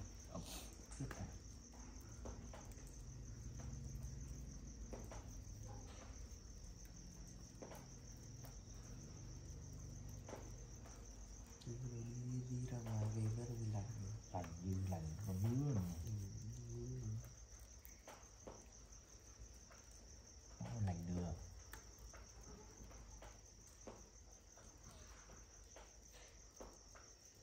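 Night insects chirping in a steady, unbroken high trill. Low, indistinct voices rise over it for several seconds in the middle and again briefly a few seconds later.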